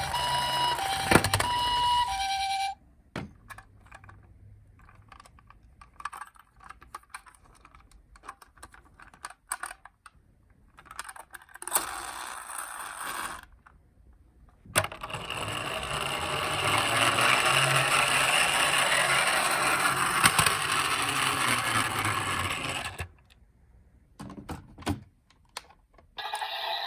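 Japanese ambulance two-tone hi-lo siren ("pee-po") alternating between two pitches, cutting off about three seconds in. Scattered small clicks and taps follow. In the middle comes a long stretch of steady rushing noise lasting about eight seconds.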